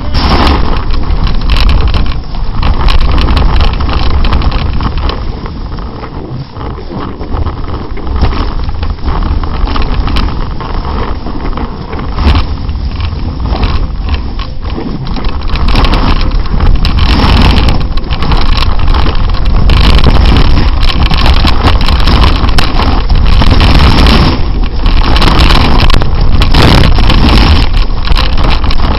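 Loud wind buffeting a leg-mounted camera's microphone while snowboarding, with the board scraping and carving over snow. It eases off for a few seconds about a fifth of the way in and runs loudest and steadiest through the second half.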